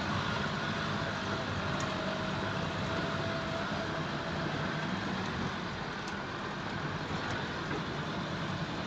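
A car driving slowly up a rough dirt track, a steady mix of engine and tyre noise. A faint steady whine runs through the first three seconds or so.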